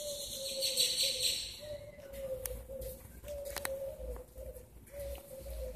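A dove cooing: a string of low, even notes, each about a second long, with short breaks between. A brief rushing hiss in the first second or so and a few faint clicks in the middle.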